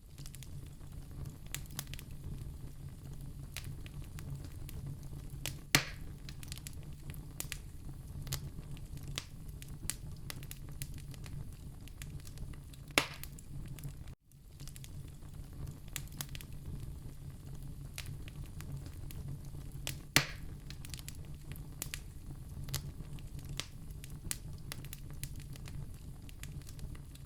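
Wood fire crackling in a fireplace: many small crackles over a steady low rumble, with three loud sharp pops spread through. The sound drops out for a moment about halfway.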